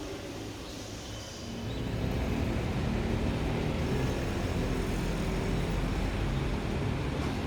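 Low vehicle engine rumble that grows louder about two seconds in and then holds steady.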